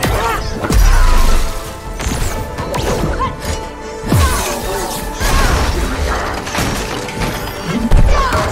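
Action-film fight soundtrack: dramatic score under blue energy-weapon blasts, smashing furniture and shattering glass, with heavy booms about a second in and again near the end.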